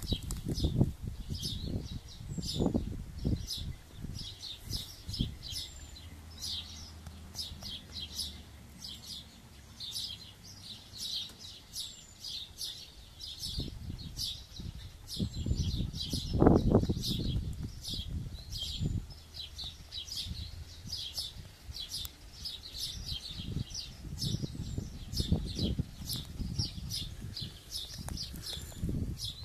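Small birds chirping over and over, several short calls a second, with wind gusting on the microphone in low rumbles, the strongest about halfway through.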